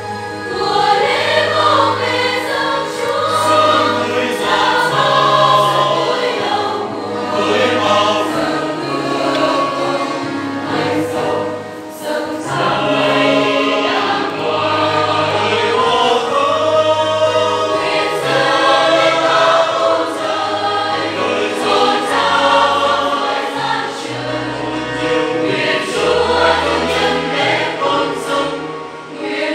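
Church choir singing a Vietnamese Catholic hymn, with keyboard accompaniment holding low bass notes that change every second or two.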